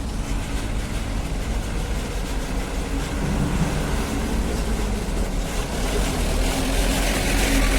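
Diesel engine of a hydraulic excavator running steadily while unloading stone, growing louder near the end.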